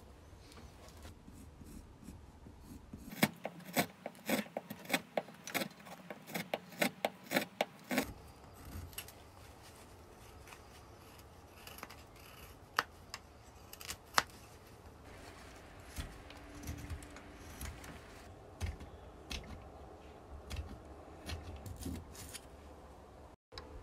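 Hand wood carving: a quick run of sharp wooden knocks for about five seconds, then a few single wooden mallet strikes on a carving tool. After that come quieter knife cuts, clicks and scraping as the spoon is whittled.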